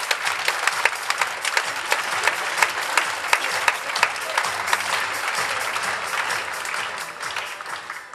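Theatre audience applauding: dense, steady clapping from a large crowd that thins out and fades near the end.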